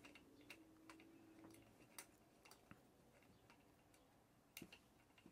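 Faint, scattered metallic clicks and ticks as bolts are threaded by hand, one at a time, into an electric scooter's rear hub motor, with a small hand tool knocking against the metal now and then.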